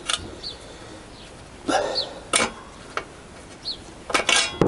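Metal hand tools clinking and clanking against the engine mount bolts and frame of a Honda CBR1000F while its engine mounts are undone, with a few sharp clanks and a quick cluster near the end. A bird chirps three times in the background, each a short falling chirp.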